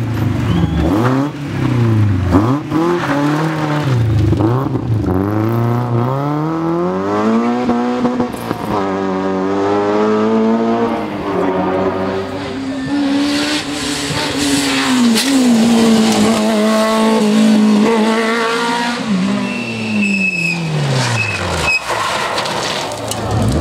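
Two Citroën rally cars take a tight corner one after the other. The first car's engine drops as it brakes and slides through, then climbs through the gears as it pulls away. The second car's engine is heard coming in, then falls away as it brakes into the corner near the end, with a brief tyre squeal.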